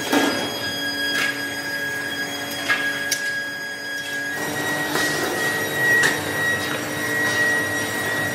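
Factory machinery running with a steady high whine and a lower hum, broken by several sharp metal knocks. The whine steps up in pitch a little over four seconds in.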